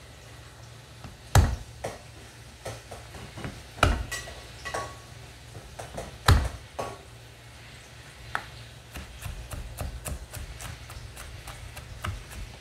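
Kitchen knife knocking on a wooden cutting board while chopping garlic: a few loud single knocks, then faster, regular chopping from about nine seconds in, roughly four strokes a second.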